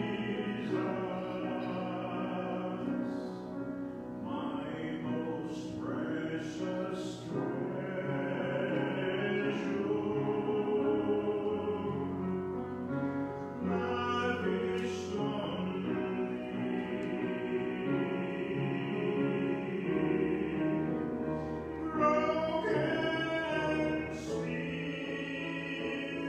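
A man singing a solo into a microphone over instrumental accompaniment, holding long notes.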